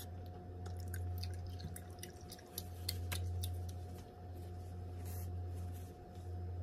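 Close-up eating sounds: scattered soft, wet mouth clicks and smacks from chewing a mouthful of tteokbokki glass noodles, over a steady low hum.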